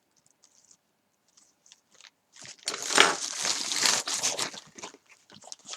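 Plastic packet crinkling as it is handled. A few faint clicks come first, then a little over two seconds in a dense crackling run lasts about two and a half seconds.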